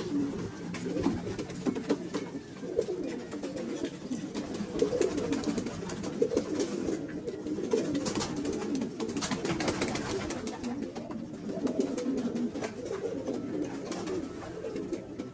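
A flock of domestic pigeons cooing together, many overlapping low coos in a continuous chorus, with scattered light clicks.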